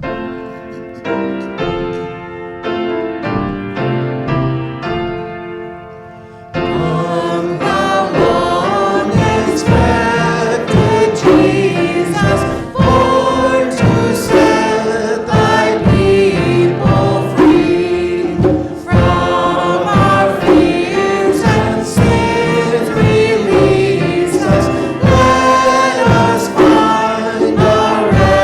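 Gospel-style choir music: a quiet opening, then about six and a half seconds in a sudden lift to a fuller, louder arrangement with a steady beat.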